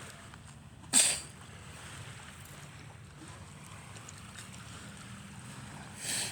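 Steady wind noise on the microphone, with a sharp, brief rustle about a second in and a smaller one near the end.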